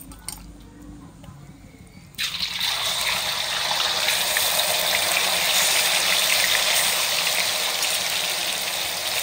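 Marinated chicken pieces dropped into hot oil in a kadai. About two seconds in, a loud, steady crackling sizzle of deep-frying starts suddenly and keeps going.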